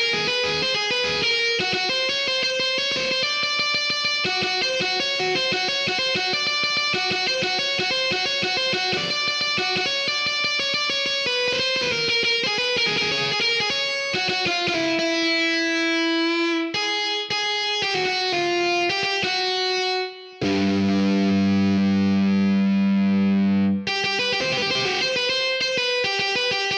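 Electric guitar from GarageBand's on-screen guitar playing a quick run of single notes that slows to a few held notes. After a brief break about twenty seconds in, a louder low chord rings for about three seconds before the quick notes return.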